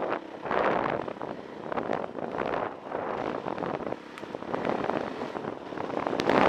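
Dirt bike riding over a rough trail: wind rushing across the camera microphone over the engine, swelling and easing in waves, and louder near the end.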